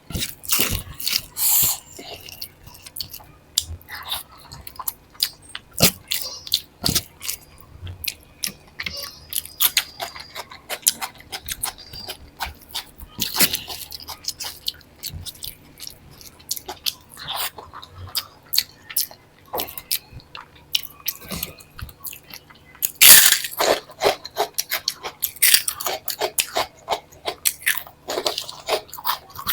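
Close-miked eating sounds: a person chewing with many quick wet mouth clicks and occasional crunchy bites, loudest in a dense run of crunches a little over 20 seconds in.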